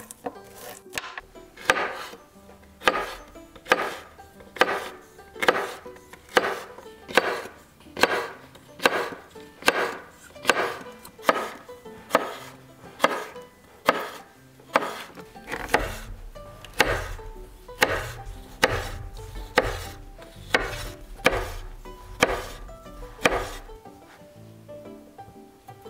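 Chef's knife slicing a green chili pepper on a cutting board in evenly spaced cuts, a little over one a second, over soft background music.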